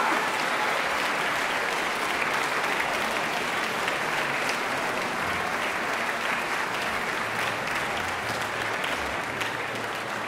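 A large audience applauding steadily, easing off slightly toward the end.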